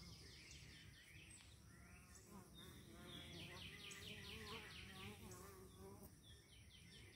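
Honeybees buzzing faintly at a hive entrance.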